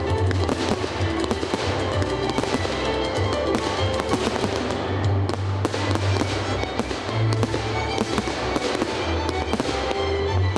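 Fireworks display: aerial shells bursting and crackling in quick succession over the music of a pyro-musical show.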